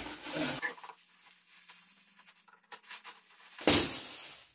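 Gift wrapping being handled as a present is opened: faint scattered crinkles, then a short, loud rustle or rip of the wrapping a little before the end.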